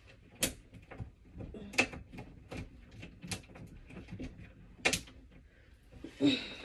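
Irregular sharp clicks and clacks of shower curtain hooks and clothes hangers being handled while shorts are hung up, five louder clacks among many lighter ones. A short vocal sound comes near the end.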